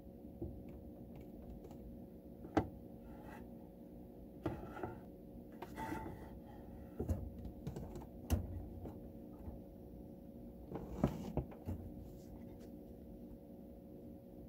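Organ pedals pressed by feet in soft slippers: irregular clicks and knocks, a handful of them sharper, over a faint steady hum.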